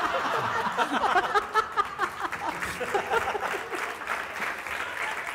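Live audience laughing and clapping after a punchline, many voices and hands at once, easing off slightly after the first couple of seconds.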